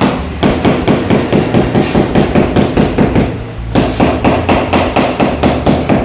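Rapid, even knocking at about five strokes a second, pausing briefly about three and a half seconds in.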